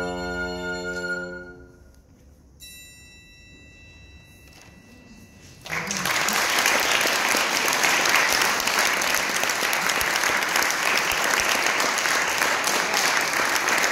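Violin, bassoon and recorder hold a final chord that dies away about a second and a half in. A faint high ringing tone follows in the pause. About six seconds in the audience starts applauding, and the applause goes on steadily.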